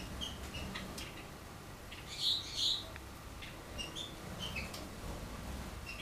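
Domestic canary chirping: short high call notes scattered through, with two louder chirps a little past two seconds in.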